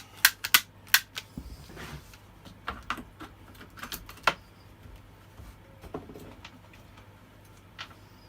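Sharp clicks and taps of tools and small chainsaw parts being handled on a workbench, several in quick succession in the first second, then scattered and fainter.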